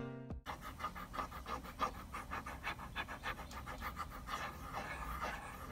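A UGEE M708 stylus nib scratching across the tablet's textured drawing surface in quick, repeated short strokes, several a second.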